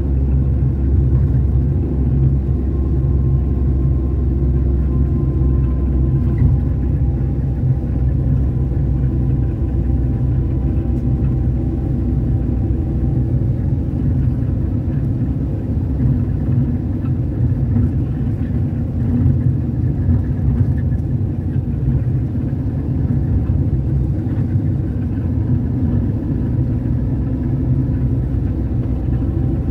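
Moving road vehicle's engine and tyre noise heard from inside, a steady low rumble while driving along at speed.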